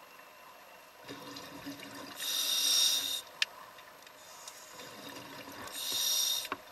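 Underwater sound of a scuba diver breathing through a regulator. Two bursts of exhaled bubbles, about a second each and a few seconds apart, with a single sharp tick between them.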